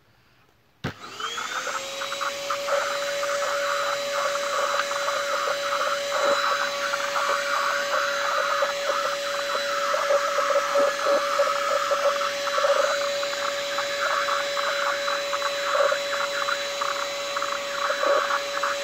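Compact handheld vacuum cleaner switched on about a second in, its motor spinning up quickly to a steady high whine. It keeps running as the nozzle moves over a tiled floor, with short irregular noises from the nozzle on the floor.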